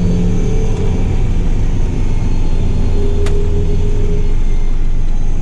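John Deere 8520 tractor's six-cylinder diesel engine running steadily under way, with a single brief click about three seconds in.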